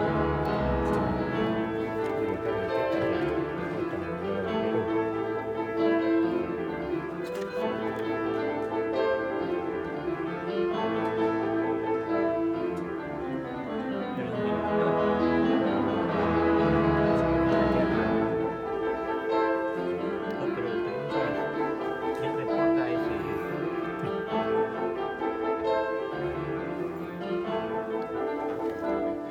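Symphony orchestra with piano playing live: sustained string and wind chords with piano throughout, swelling to its loudest around the middle.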